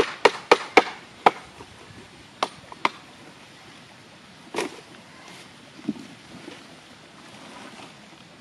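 Sharp taps and knocks of hands and cleaned wild mushrooms against a metal bowl as they are handled and dropped in: a quick run of about five in the first second and a half, then a few more spaced out.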